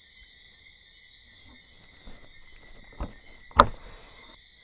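A knife chopping sweet corn: two sharp knocks about three seconds in, half a second apart, the second the louder. A steady high chorus of crickets runs underneath.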